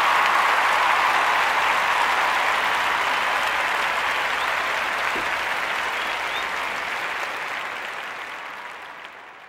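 Applause from a crowd, a steady dense clapping that fades out gradually over the last few seconds.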